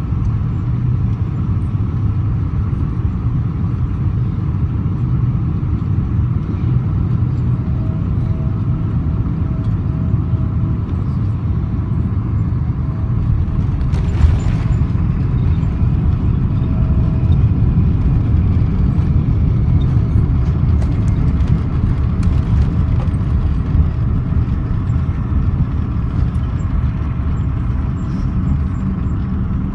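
Boeing 777-200ER heard from inside the passenger cabin during the landing: a loud, steady, low rumble of engines and airflow, with a faint thin whine for a few seconds in the middle and a single sharp knock about halfway through.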